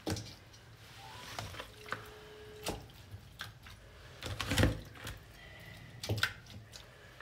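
Wet raw kid goat pieces on the bone being placed by hand into a stainless steel pot: a series of soft squelches and light knocks of meat and bone against the metal, the loudest a little past halfway.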